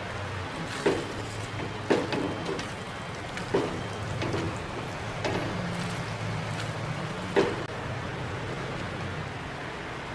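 Silicone spatula stirring thick tomato risotto in a nonstick frying pan: five sharp scrapes and knocks against the pan, a second or two apart, over the soft crackle of the simmering rice and a steady low hum.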